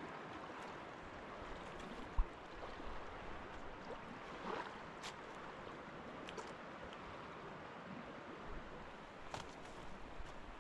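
River water rushing steadily, with a sharp knock about two seconds in and a few faint clicks later.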